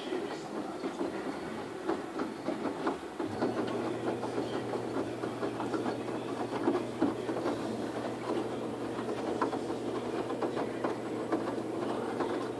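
Front-loading Waveforce 14 kg washing machine tumbling wet clothes on its Jeans programme, with water sloshing and the laundry knocking against the drum. A steady motor hum comes in about three seconds in.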